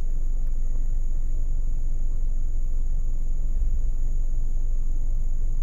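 Steady low rumble with a thin, steady high-pitched whine above it; nothing starts or stops.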